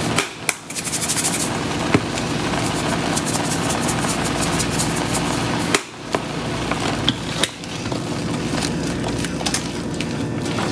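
Thick butternut squash and milk sauce bubbling and sputtering in a stainless skillet on raised heat: a steady hiss with scattered pops.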